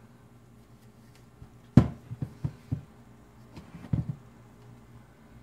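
Handling knocks from a camo-taped rifle scope being set down and moved about on a cutting mat: a sharp knock about two seconds in, then several lighter taps and bumps.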